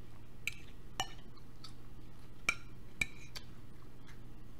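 Metal fork clinking against a dinner plate while picking up food: several sharp, separate clinks a half-second or so apart, over a steady low hum.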